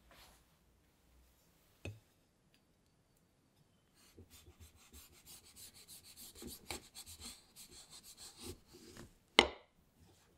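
A steel knife saws down through a chocolate-coated choco pie with a run of small crackles, and the blade ends with a sharp clink on the ceramic plate about nine seconds in. A single short knock comes earlier, about two seconds in.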